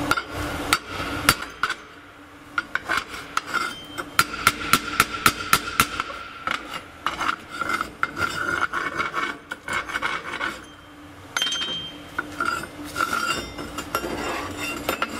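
Chipping hammer tapping and scraping slag off a flux-core weld bead on steel plate. Sharp metallic taps come in quick runs of several a second, with gritty scrapes between them and a couple of short pauses.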